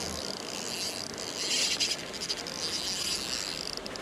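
Spinning reel being cranked to retrieve a small trout spoon, a steady high-pitched whirr that grows louder for about half a second near the middle.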